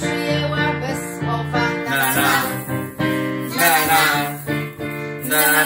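Family song: voices singing "na na na" over electric keyboard accompaniment.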